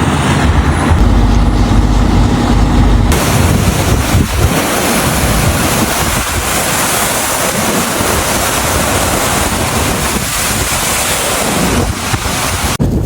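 Loud rushing wind noise mixed with vehicle rumble. A heavy low rumble changes abruptly, about three seconds in, to a steady rushing hiss.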